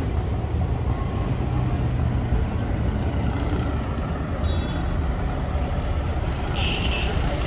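Street traffic: vehicle engines running in a steady low rumble, with a brief higher-pitched sound near the end.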